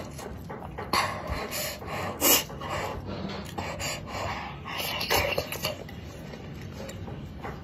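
A person slurping and chewing spicy wontons in hot chili-oil soup, in several short bursts, with sharp pant-like breaths through the mouth against the spice and heat.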